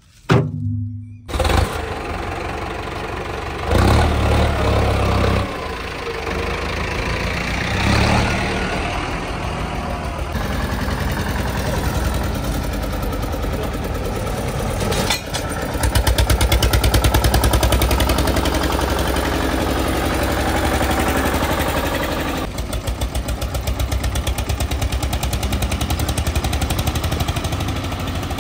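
Diesel tractor engines running hard, with louder surges about four and eight seconds in and a heavier, pulsing engine beat in the second half.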